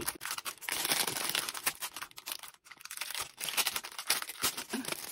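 Clear plastic packaging bag crinkling as hands pull a ring binder out of it: thick, continuous crackling for about the first two seconds, then on and off.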